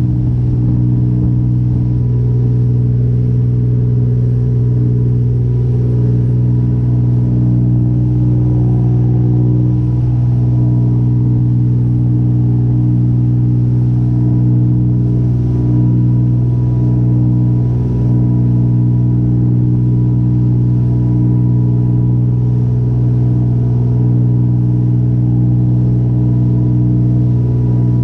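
Fishing boat's engines running steadily at cruising speed: a loud, constant low drone that holds one pitch throughout, over a fainter hiss of wake and wind.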